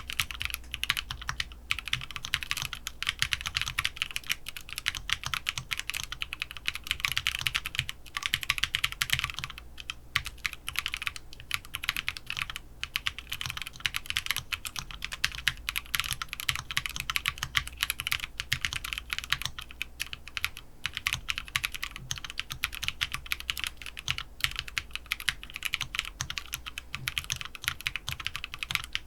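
Mechanical keyboard fitted with PKKeys Misu long-pole linear switches being typed on steadily: a continuous, fast patter of sharp key clacks.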